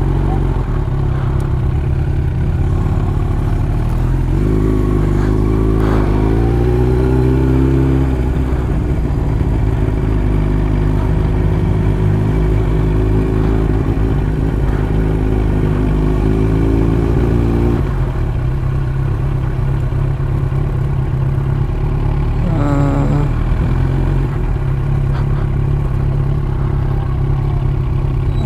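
Yamaha R1's inline-four engine running as the motorcycle rolls slowly at low speed. The revs rise and fall about four to eight seconds in, stay steady, then drop back about eighteen seconds in.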